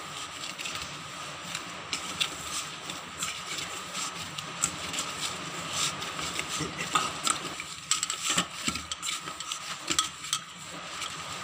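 Hands kneading and squashing a soft grated-potato mixture in a stainless steel bowl, with many small scrapes and clicks against the metal.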